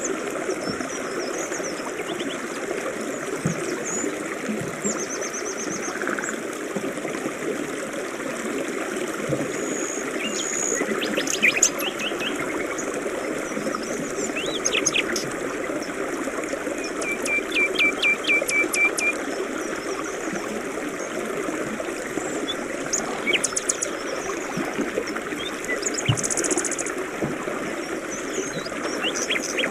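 A forest river rushing steadily, with several birds singing over it in short chirps and trills, including a rapid run of repeated notes about two-thirds of the way through.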